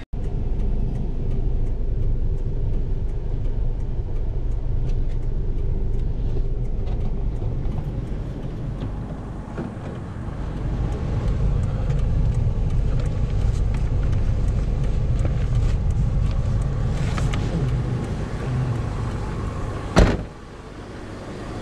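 Car on the move: a steady low road and engine rumble that eases briefly about nine seconds in. Near the end there is a single sharp thump, after which the rumble drops off.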